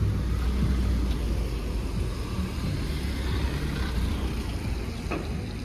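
Low, steady rumble of a car engine running close by, over street noise; it eases off toward the end.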